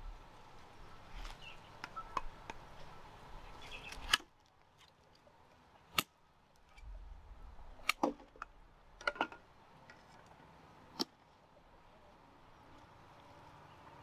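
Machete blade chopping at a sugarcane stalk: a series of sharp, irregularly spaced strikes, the loudest about four seconds in, with lighter knocks and rustling between them.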